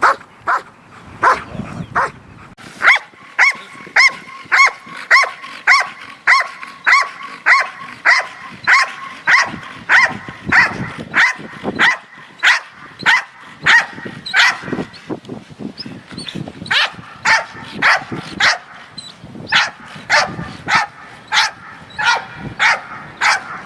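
A Doberman barking over and over, about two barks a second, at a ball it is being made to wait for until released.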